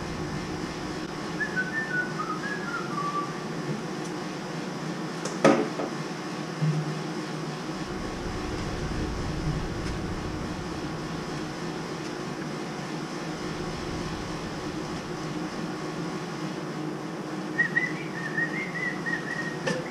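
A person whistling a few short notes that step down in pitch near the start, and a few more near the end, over a steady low hum. One sharp knock about five and a half seconds in.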